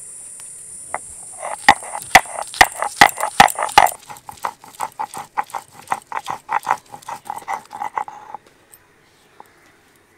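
Ginger, garlic and green chillies being pounded into a paste: a quick series of strikes with a ringing note, about four a second. The strikes are heavier for the first couple of seconds, then lighter, and stop about eight seconds in.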